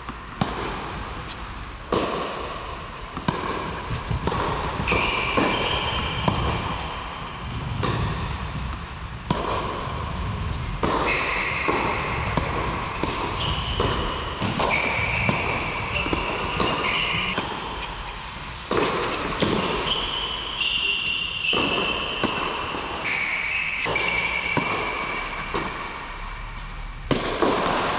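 Tennis rally on an indoor hard court: sharp knocks of racket strikes and ball bounces at irregular intervals, echoing in a large covered hall.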